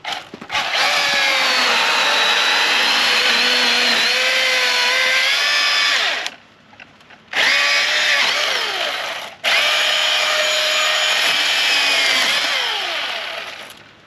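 Chainsaw running at full speed and cutting through a fallen log, its pitch dipping and rising as it works. It stops abruptly about six seconds in, runs again for about two seconds, stops, then runs once more and winds down near the end.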